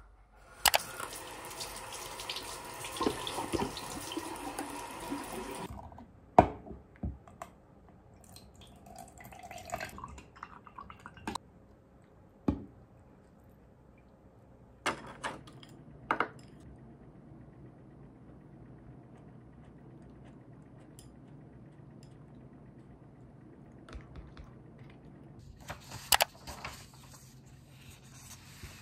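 A tap running into a bathroom sink as hands are washed under it, for about five seconds, then shut off. After that, scattered light knocks and clicks of kitchen work over a quiet background.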